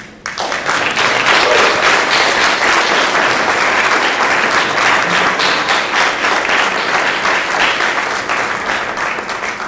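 Audience applauding. It starts sharply, holds steady, and eases off slightly near the end.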